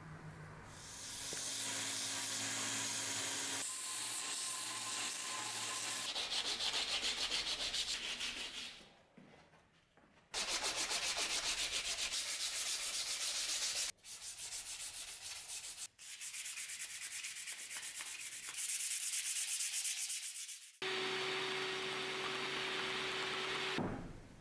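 Abrasive sanding of a knife handle, a dense scratching hiss of fast, even strokes, heard in a series of short clips that cut in and out. Near the end a steady motor hum joins the sanding.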